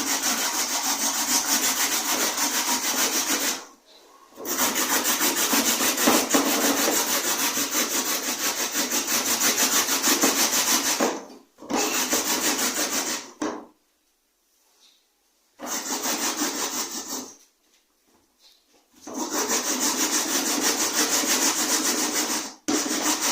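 Carrot being grated by hand on a grater: steady, rapid rasping strokes that stop briefly several times, with two longer pauses near the middle.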